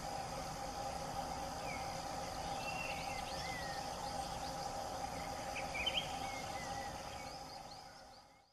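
Forest ambience: a steady insect drone with short bird chirps and falling whistles scattered over it, a cluster of chirps about six seconds in, fading out near the end.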